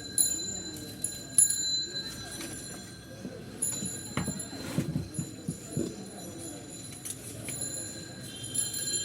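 Light metallic clinks and taps of small metal parts and tools being handled during a table fan bushing change. Some clinks leave short ringing tones, and the busiest cluster of clicks comes around the middle.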